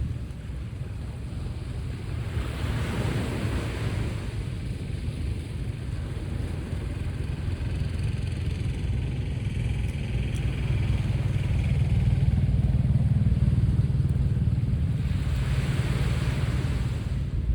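Sea waves washing onto the shore, with a low, steady engine drone underneath that grows louder about halfway through and stays prominent.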